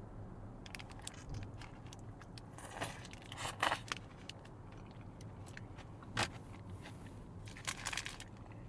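Close-miked biting and chewing of a ribeye shawarma wrap: wet mouth clicks, with a few louder crunchy bites spread through.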